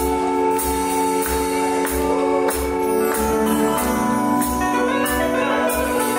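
Live dance music from an electronic keyboard played through PA speakers: held chords and melody lines over a steady drum beat.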